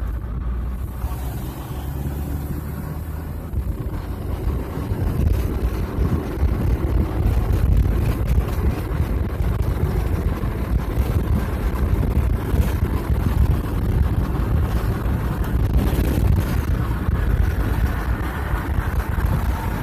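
Road noise inside a moving car's cabin: a steady low rumble of tyres and engine, with some wind buffeting on the microphone.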